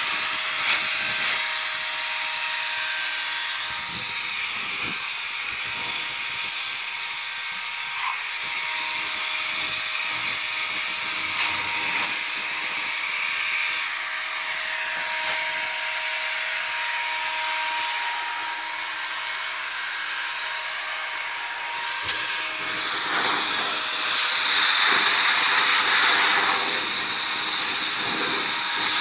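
Handheld leaf blower running steadily: a motor whine over the rush of air. It swells louder for a few seconds near the end.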